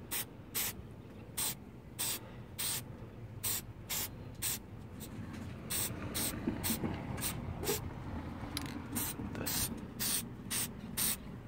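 Aerosol can of Permatex Copper Spray-A-Gasket sealant sprayed in many short hissing bursts, a little over two a second, as the gaskets are coated.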